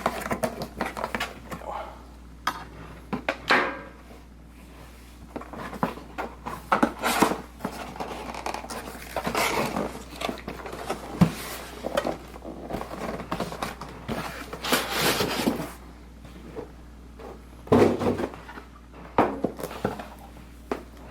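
A cardboard box and its packing being opened and handled by hand: irregular rustling, scraping and light knocks of cardboard and wrapping, some louder scrapes in the middle.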